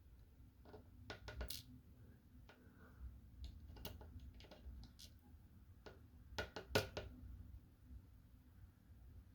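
Scattered small metal clicks and taps of hand tools and lock parts being worked while pins and springs are pushed out of a lock cylinder, with the loudest clicks about a second in and again around six and a half seconds in.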